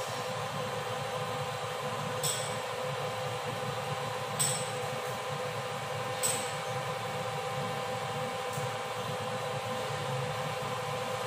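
Steady machine hum with a steady tone running through it, and three short clicks about two seconds apart in the first half.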